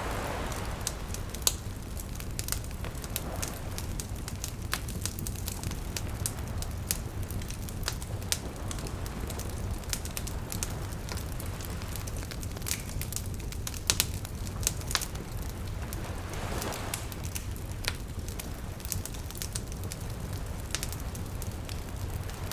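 Wood fire crackling with frequent sharp pops and snaps over a steady low rumble, with small waves washing in softly near the start and again about two-thirds of the way through.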